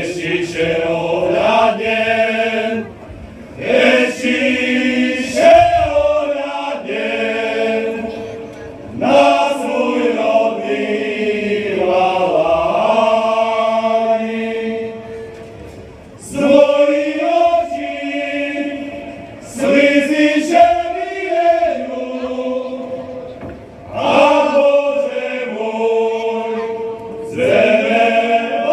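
A group of men singing a Slovak folk song together without instruments, in phrases a few seconds long with short breaths between them.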